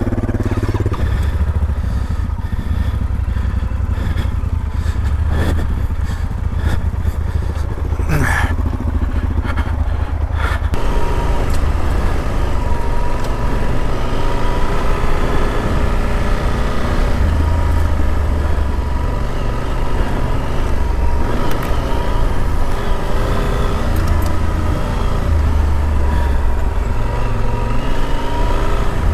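Yamaha Super Ténéré parallel-twin motorcycle engine running under way, over a steady deep rumble. There are a few sharp knocks in the first ten seconds, then the engine note rises and falls through the revs from about eleven seconds in.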